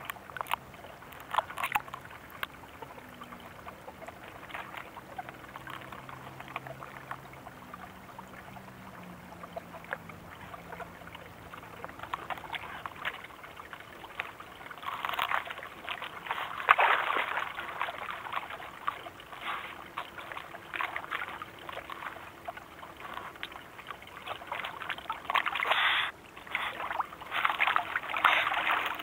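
Eurasian otters moving about in shallow water among rocks: water trickling and sloshing, with bursts of wet splashing and clicking about halfway through and again near the end.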